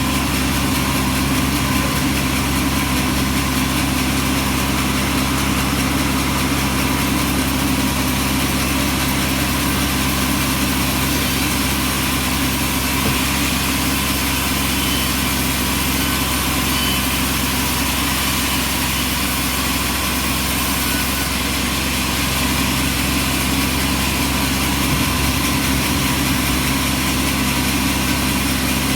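Bandsaw sawmill running steadily, an even machine drone that holds the same pitch and level throughout.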